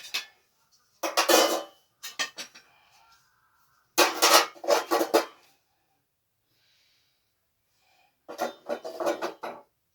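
Metal parts of an LPG gas stove clinking and clattering as they are handled and set in place during reassembly. The sound comes in several short bursts of rapid clinks, the loudest about four seconds in.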